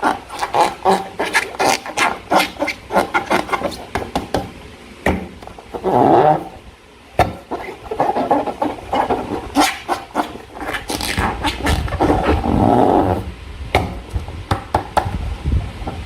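Slime being squeezed and squished by hand, with a rapid run of wet crackles and pops. Two longer, louder squelching noises come about six seconds in and again around twelve seconds in.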